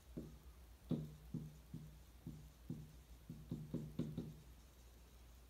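Dry-erase marker writing on a whiteboard: a string of light, irregular taps and short strokes, about two to three a second, as the pen tip meets the board, each with a brief low ring from the board.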